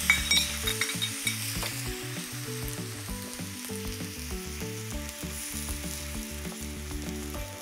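Sauce of yakiniku tare, soy sauce and doubanjiang sizzling and bubbling steadily on a very hot electric hot plate as it reduces down, with a spatula stirring through it near the end. A couple of sharp clinks come just after the start.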